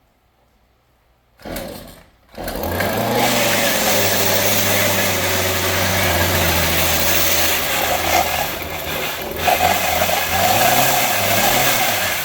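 Stihl string trimmer engine pull-started: a short first burst about a second and a half in, then it catches and runs loud, revving up and holding, wavering near the end before dropping off. The trimmer's inner drive shaft is broken, so the head does not turn, and the running is judged not good.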